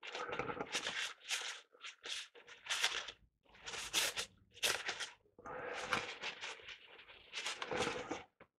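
Irregular handling noises: short scrapes, rustles and light knocks as an old capacitor is picked up and handled on a workbench.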